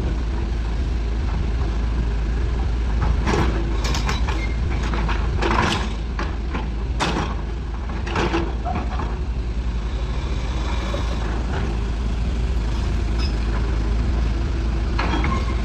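Used excavator's diesel engine running steadily, with several short hissing bursts a few seconds in.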